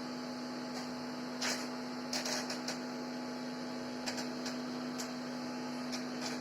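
Steady electrical hum from an Ahuja 250-watt PA amplifier and its speaker, with a few faint clicks and rustles over it.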